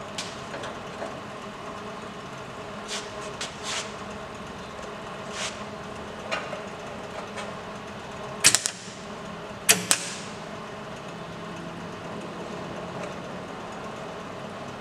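Steady workshop background with scattered small handling clicks, then two short crackling bursts from a MIG welding torch about eight and a half seconds in and again a second later: brief tack welds on a car's steel body panel.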